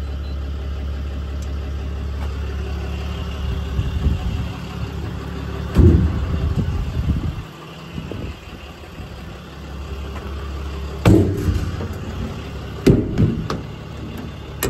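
The Ram 5500's 6.7 Cummins diesel idling as a steady low hum, with several loud clunks and thumps of the service body's compartment doors and latches being opened and shut.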